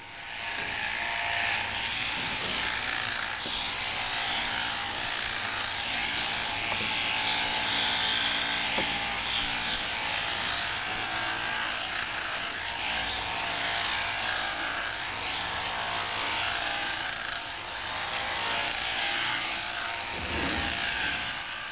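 Sheep-shearing machine handpiece running with a steady buzz as its comb and cutter shear the fleece off the sheep's last side.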